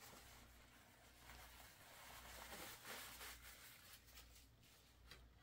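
Near silence: room tone with a low steady hum and a few faint soft rustles.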